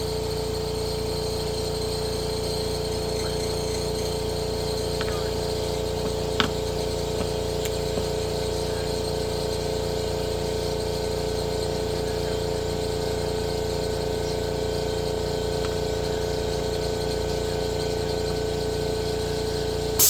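A motor running steadily with a constant hum, cutting off abruptly at the very end.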